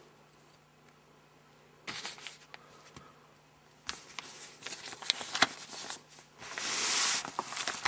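Hands handling small poker accessories and their plastic packaging: scattered rustles and light clicks starting about two seconds in, growing busier, with a longer crinkling rustle near the end.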